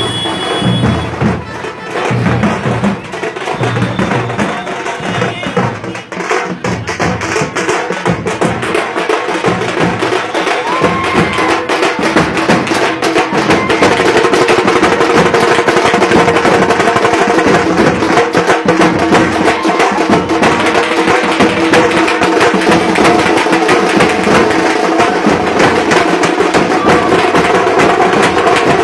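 A group of street drummers beating large barrel drums slung at the waist in a fast, dense rhythm. The drumming gets louder and steadier about halfway through, and a steady held tone sounds over it from then on.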